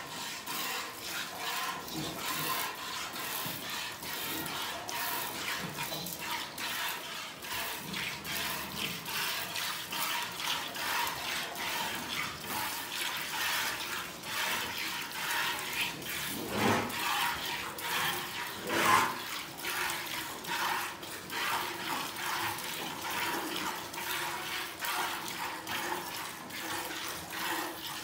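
Rhythmic hand-milking of a cow: streams of milk squirting from alternating teats into a steel pail partly full of frothy milk, giving a steady series of liquid hisses and splashes. Two louder brief noises come about two-thirds of the way through.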